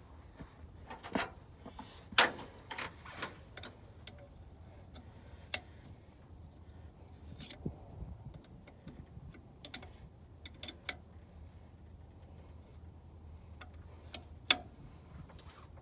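Scattered clicks and light metallic knocks of hand tools and parts being handled during brake-bleeding work, the sharpest about two seconds in and near the end, over a faint steady low hum.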